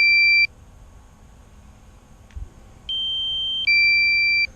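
Drone controller's low-battery warning: a repeating two-note electronic beep, the second note louder. One ends half a second in and the next sounds at about three seconds, with a small knock in between.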